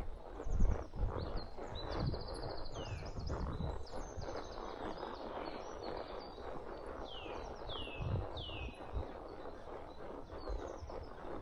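A ridden horse's hooves thud slowly and unevenly, with birds singing: high chirps throughout and three falling whistled notes about seven seconds in.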